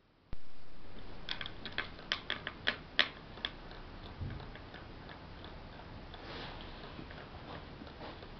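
Pendulum clock ticking: a run of sharp, uneven clicks in the first few seconds, then fainter, sparser ticks over a steady hiss. A single sharp knock comes about a third of a second in.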